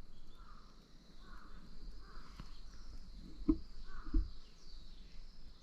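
Outdoor ambience with a steady high insect chirring and a short harsh call repeated about every second, likely a crow cawing. Two dull thumps come about halfway through.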